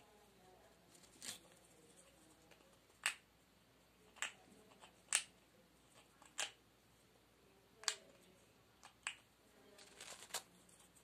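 Severe macaw's beak biting and picking at bedding: about ten sharp clicks, irregularly spaced roughly a second apart.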